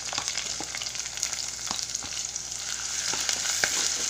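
Hot coconut oil sizzling in a clay curry pot as a paste of crushed dried chillies, shallots and onion is scraped in and stirred, with sharp clicks of the spatula against the plate and pot. The sizzling grows louder in the last second or so.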